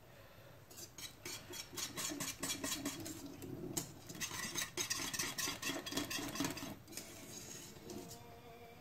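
Metal utensil stirring thick soup in a stainless steel pot, scraping and clinking against the pot's sides and bottom. The stirring starts about a second in and stops about seven seconds in.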